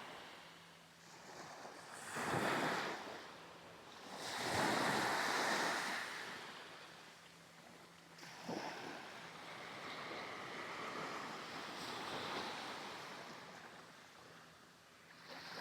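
Small Caribbean Sea waves breaking and washing up on a sandy beach, swelling and fading several times, with some wind on the microphone.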